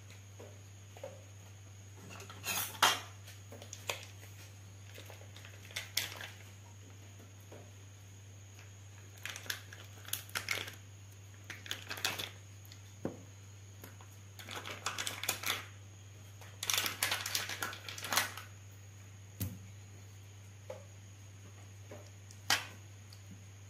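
Irregular bouts of clattering and scraping as raw chicken drumsticks are handled on a baking tray, with a few sharp single clicks, over a steady low hum.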